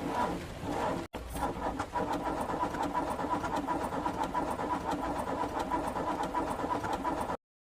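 Car engine cranking, then, after a sudden break about a second in, running steadily: the stalled engine has started.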